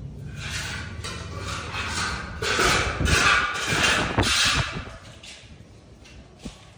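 Scraping and knocking from manual repair work, with a run of rough, loud scraping strokes in the middle that fade away near the end.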